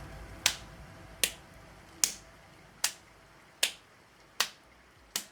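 Sharp snaps at an even pace, about one every 0.8 seconds, seven in all, as faint music dies away at the start.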